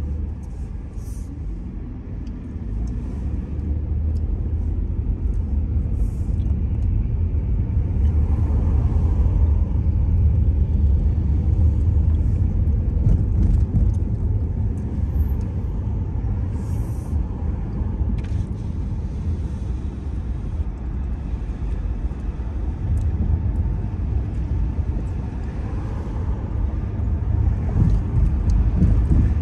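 Car road noise while driving: a steady low rumble of engine and tyres that grows louder about eight seconds in and again near the end.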